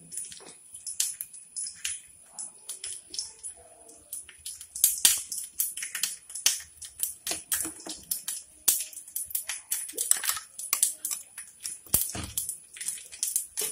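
A metal ladle stirring thick payasam in an aluminium pot: irregular clicks, taps and scrapes of metal on metal, denser in the second half.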